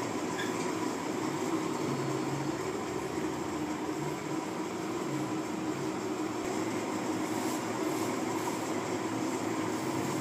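Cordless electric hair clipper running with a steady buzz as it cuts through hair, its pitch wavering slightly as the blades meet the hair.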